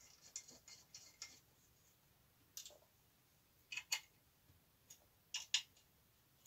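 Faint metallic clicks and taps of an Allen key engaging and turning the cap-head bolts of an alloy indexing plate on a lathe's headstock casing: a quick run of small ticks at first, then a few separate sharp clicks.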